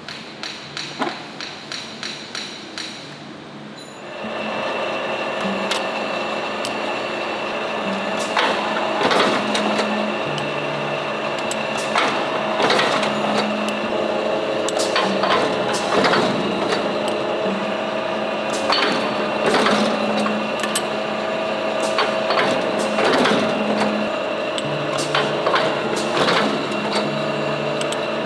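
A quick series of ticks, about three a second. About four seconds in, a machine starts up and runs steadily with a hum and a high whine, and sharp knocks come every second or two.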